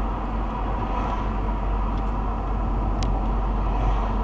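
Steady road and engine noise inside a moving car, heard through a dash cam's microphone, with a single faint click about three seconds in.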